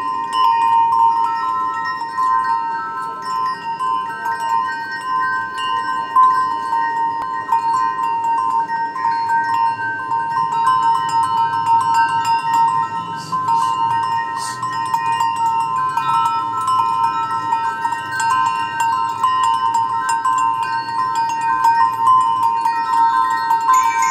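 Background music of chimes: ringing notes at changing pitches over one steady held tone.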